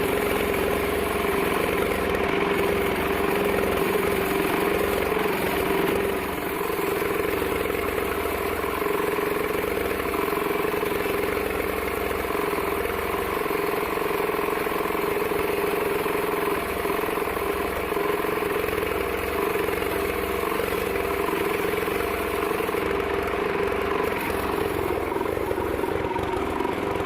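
Sawmill machinery around a large bandsaw running with a steady, unbroken drone.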